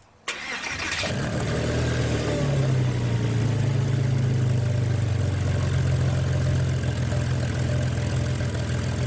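Car engine running steadily, starting with a rushing whoosh, its pitch stepping up slightly a couple of seconds in and then held.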